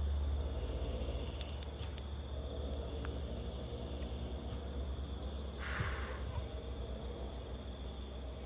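Night insects, crickets among them, chirring steadily in high tones over a low hum, with a few sharp clicks about a second and a half in and a brief rustle about six seconds in.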